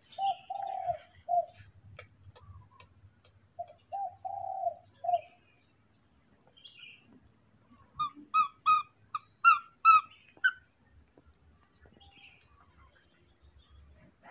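A dove cooing: two phrases of soft, low, pitched coos a few seconds apart. About eight seconds in comes a quick run of about seven sharper, higher chirping calls.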